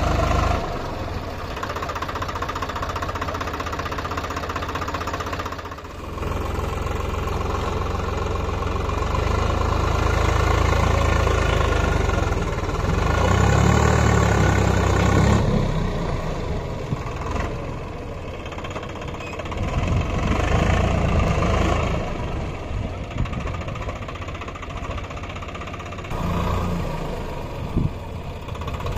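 Diesel tractor engines running close by, mainly a Swaraj 744 FE with a second tractor behind it; the engine note rises and eases off several times, loudest in two stretches in the middle.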